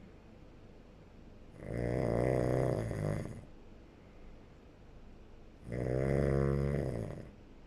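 A sleeping person snoring: two loud snores, each about a second and a half long, roughly four seconds apart, with quieter breathing between.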